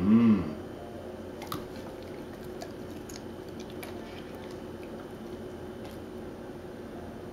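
Basset hound giving one short whine that rises and falls in pitch, about half a second long, right at the start. Then come faint clicks and smacks of her chewing blueberries.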